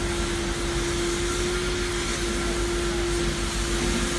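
Pressure washers running and spraying water onto a car: a steady hiss of spray over a constant pump hum.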